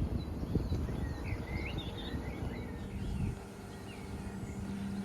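Outdoor unit of a ductless inverter heat pump running, changing its capacity: a low rumble drops away about three seconds in and a steady low hum takes over. Birds chirp throughout.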